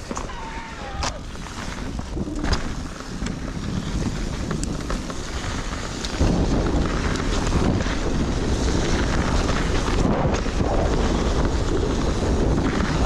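Wind buffeting the camera microphone: a heavy, low rumbling noise that gets louder about six seconds in.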